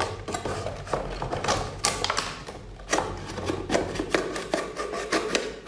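A metal kitchen knife clicking and scraping against the hard shell of a giant mussel as it is worked into the shell to cut it open: a quick, irregular run of sharp clicks and taps.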